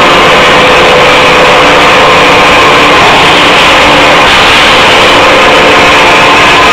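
Steel-rebar induction heating line running: a loud, steady machine noise with faint steady hums in it.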